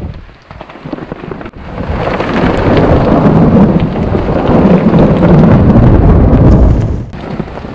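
A long roll of thunder over heavy rain. It builds about a second and a half in, stays loud and deep for some four seconds, then falls away near the end.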